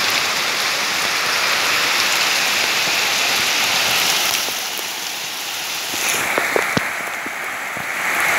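Heavy rain falling steadily. About four seconds in it softens, with a few sharp drips, and near the end rainwater pours from a PVC downpipe into a plastic barrel.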